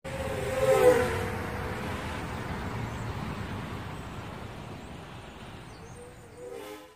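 Intro sound effect of a vehicle-like rushing noise with gliding tones, loudest about a second in and slowly fading away, with a brief pitched sound near the end before it cuts off.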